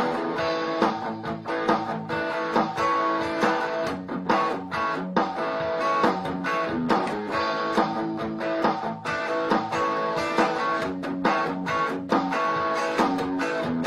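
Black Les Paul–style electric guitar played through an amplifier: picked notes and chords in a slow, steady melody.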